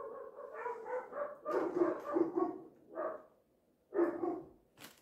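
Dog barking repeatedly: a quick run of barks, then one more about four seconds in.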